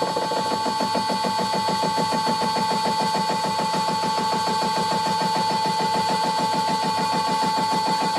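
An 80 mm indexable face mill (shell mill) spun by a lathe takes an interrupted face cut on a steel block, its insert hitting the work in a fast, even rhythm of about nine knocks a second over a steady whine from the running lathe. The mill is working as a pseudo fly cutter: its cheap inserts do not sit at the same height, so the cut comes from a single insert.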